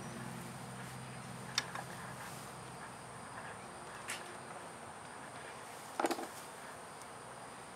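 Honeybees from a feral colony buzzing around an opened nuc box, a steady hum that is strongest in the first couple of seconds. A few light knocks and clicks come at intervals, the sharpest about six seconds in.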